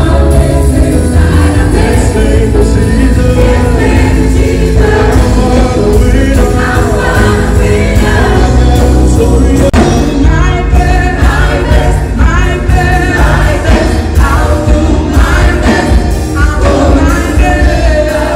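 Music with singing voices over a strong bass.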